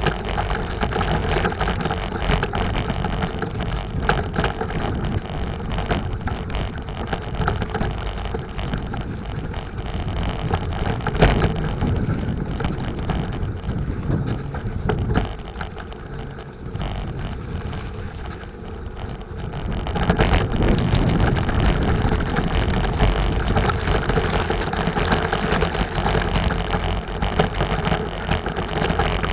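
Wind buffeting the microphone over rolling road noise while riding a bicycle, with one sharp knock about a third of the way in. The noise eases for a few seconds past the middle, then picks up again.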